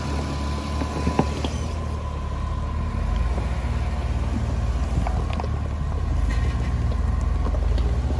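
Off-road vehicle engine running steadily at low revs, with a few light knocks, the clearest about a second in.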